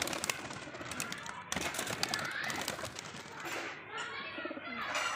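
A pigeon's wings flapping and clapping sharply as it flies off, over the first second and a half, followed by people's voices in the background.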